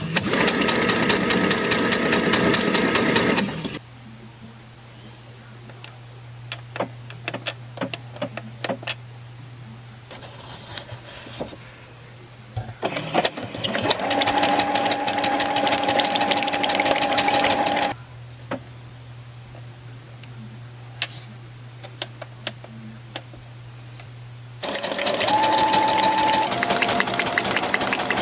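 Brother electric sewing machine stitching through paper in three runs of a few seconds each, the needle going up and down in a fast, even rhythm. A straight stitch is sewn first and a zigzag stitch near the end. Between the runs there is a low steady hum and a few small clicks.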